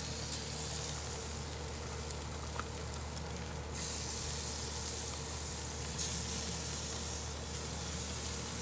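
Sauce-coated chicken wings sizzling on the hot grate of a Big Green Egg charcoal grill as they are set back on by hand: a steady hiss that starts abruptly and grows a little louder about four seconds in.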